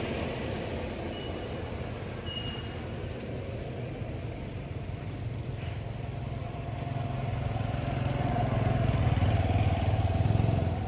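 A motor engine running nearby, with a steady low rumble that grows louder over the last few seconds.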